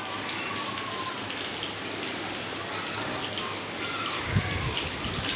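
Heavy rain falling steadily on a wet concrete rooftop, an even patter and hiss of drops, with a few dull bumps in the second half.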